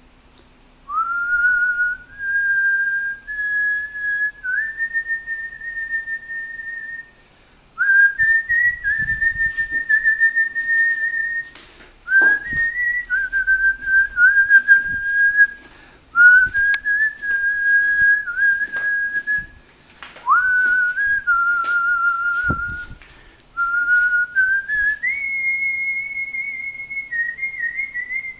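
A slow melody whistled: long held notes, each sliding up into its pitch, in phrases of a few seconds with short pauses between them.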